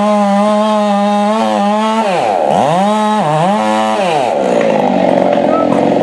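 Husqvarna 390 XP two-stroke chainsaw cutting into a tree trunk at full throttle. The engine note drops and climbs back about two seconds in, then falls to a lower, rougher note near the end.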